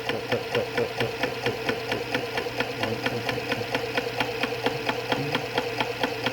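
#32 meat grinder driven by an electric motor through a V-belt, running empty: a steady motor hum with a fast, even clicking. The grinder's speed is roughly 120 to 180 rpm, which the owner takes to be good for grinding meat.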